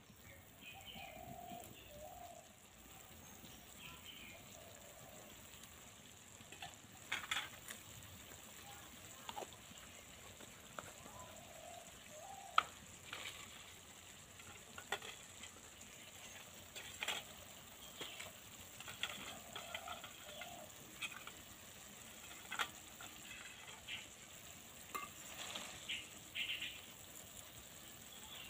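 Vegetable curry sizzling faintly in oil in an iron wok, with scattered sharp pops and spits.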